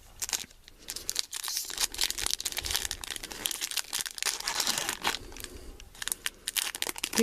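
Foil booster-pack wrapper of a Pokémon trading card pack being torn open and crinkled in the hands: a dense run of crackling and tearing.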